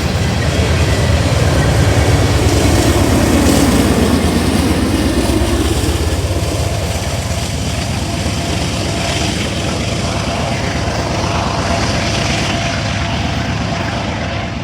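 Freight train rolling past with a steady, loud rumble of wheels on rail, easing slightly after the first few seconds.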